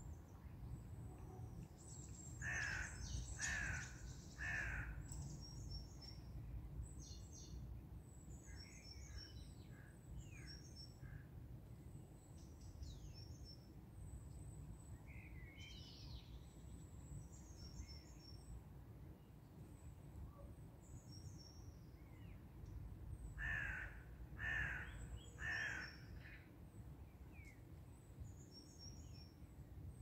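A crow cawing three times in quick succession a few seconds in, and three times again near the end. Small birds chirp high and thin throughout, over a faint low steady rumble.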